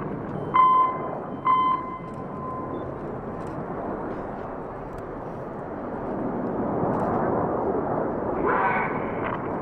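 Jet noise from a formation of BAE Hawk T1 jets flying past, a broad rushing sound that swells about halfway through and is loudest near the end. Two short steady tones sound about a second in.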